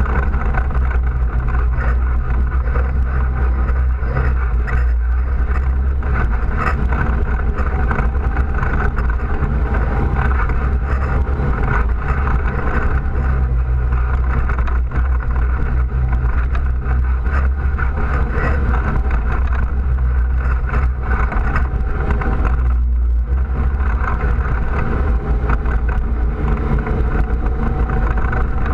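ATV engine running steadily while riding on a dirt trail, with a short drop in level about three-quarters of the way through.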